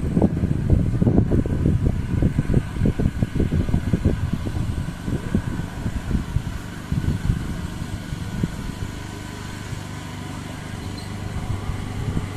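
Wind buffeting the phone's microphone: a gusty low rumble that settles into a steadier, quieter rumble about halfway through.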